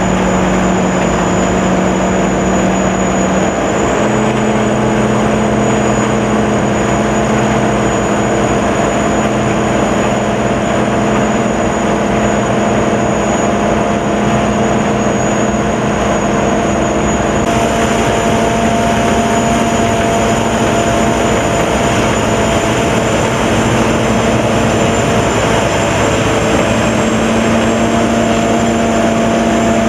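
Sakpattana corn combine harvester running loud and steady, its engine note and machinery drone joined by a thin high whine. The engine pitch steps up slightly about four seconds in and again near the end.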